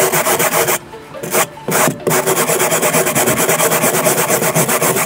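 A stiff hand brush is scrubbed fast back and forth over a car door panel's fabric crusted with hardened mounting foam, making a quick rhythmic scratching with two brief pauses in the first two seconds. The brush only scratches at the hardened foam without lifting it.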